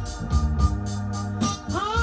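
1970s soul record playing: held organ chords over bass and a steady drum beat, with a singer's voice sliding up into a note near the end.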